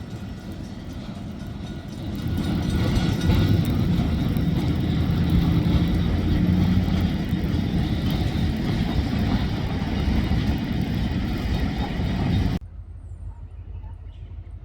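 Car driving: steady engine and road noise that grows louder about two seconds in, then cuts off abruptly near the end to a much quieter low hum.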